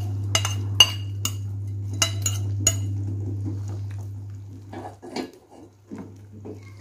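Metal ladle clinking repeatedly against a ceramic plate and the rim of a steel pot as chopped vegetables are scraped into the soup, then stirring the soup with a few softer knocks. A steady low hum underneath fades out about five seconds in.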